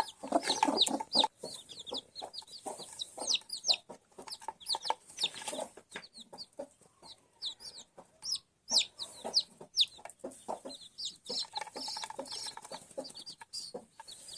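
Newly hatched chicks peeping over and over in short, high, falling calls, with a hen clucking lower underneath.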